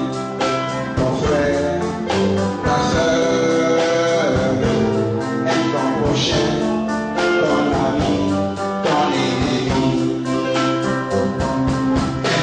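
Gospel song with a steady beat and a singing voice over held instrumental notes.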